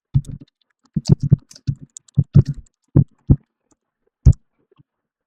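About a dozen short, irregular taps and clicks, bunched in the first three seconds or so with one more a little after four seconds.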